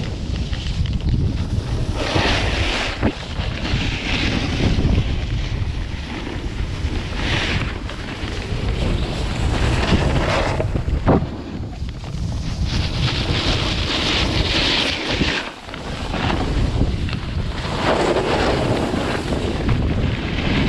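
Wind buffeting the microphone of a skier moving downhill, with the hiss of skis scraping over packed snow swelling and fading every few seconds as he turns.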